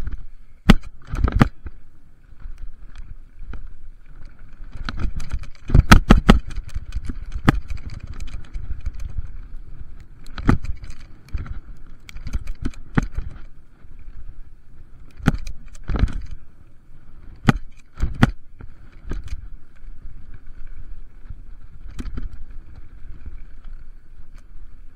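Mountain bike rattling and clunking down a rough dirt trail: repeated sharp knocks and chain clatter as the wheels hit bumps, over a constant rumble of tyres and wind. The heaviest clattering comes about six seconds in.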